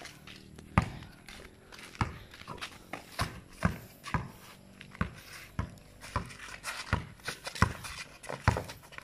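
A basketball dribbled on a concrete court: a run of sharp bounces, a little more than one a second.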